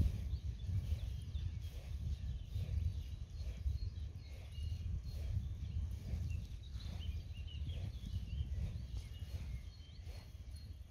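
Birds chirping and singing over an uneven low rumble, which fades toward the end.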